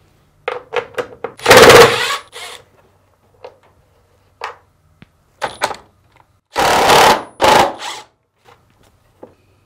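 Milwaukee Fuel cordless driver backing out the screws on the dryer motor's mounting clamps. It gives a short loud burst about one and a half seconds in, then another in two quick pulses about seven seconds in, with small clicks and handling knocks in between.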